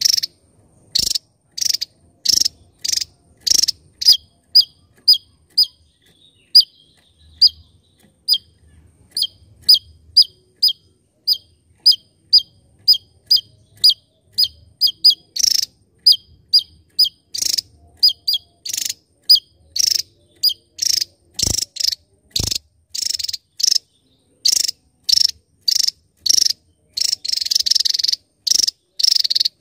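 Javan tesia calling: a long series of short, sharp, high notes, about one or two a second, some ending in a quick downward flick. Near the end the notes come faster and scratchier.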